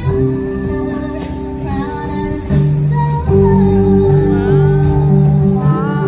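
Live Hawaiian music for hula: a woman singing to a small band of strummed ukulele and acoustic guitar, with held low notes underneath.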